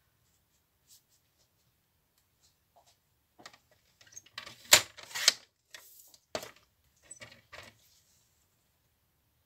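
Paper trimmer cutting patterned paper: a run of sharp clicks and scraping strokes as the blade carriage is pressed and slid along the rail, starting about three and a half seconds in and lasting about four seconds, the sharpest click near the middle.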